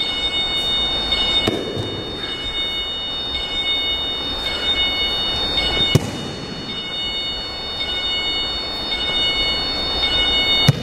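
Bodies hitting padded mats during aikido throws: three sharp slaps and thuds of breakfalls, the sharpest about halfway through, over steady room noise.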